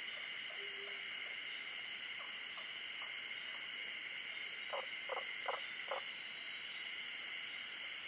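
A frog croaking four times in quick succession about five seconds in, with a few fainter croaks earlier. Under it runs a steady high-pitched natural chorus, and a single short low hoot sounds just under a second in.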